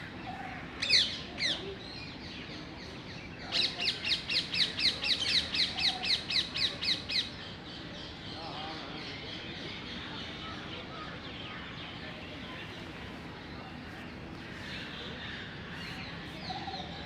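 A bird calls twice with sharp, downward-sweeping notes. It then gives a rapid run of about a dozen sharp repeated notes, roughly four a second, lasting a few seconds. A steady outdoor background hum lies under the calls.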